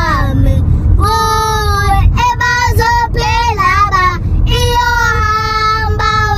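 Two young girls singing loudly together in held notes and short phrases, over the steady low road rumble of the moving car's cabin.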